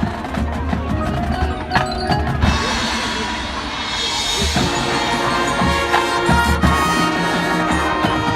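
Marching band playing, with drums and mallet percussion over sustained wind chords.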